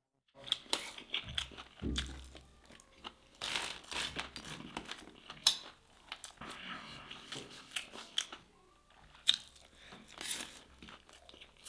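Close-up biting and chewing of crunchy, nut-crusted fried fish: a string of sharp crunches, with louder bites about five and a half and nine seconds in.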